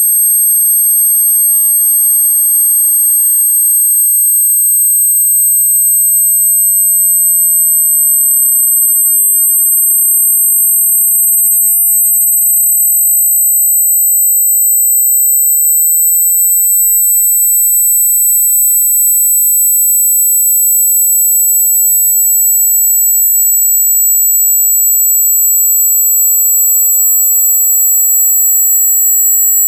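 Electronically generated speaker-test tones: two pure, high-pitched tones sounding together, steady and loud, the lower one sliding very slowly a little lower.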